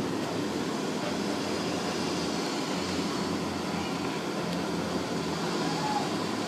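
Steady outdoor background noise, an even rush with a low hum under it and faint distant voices.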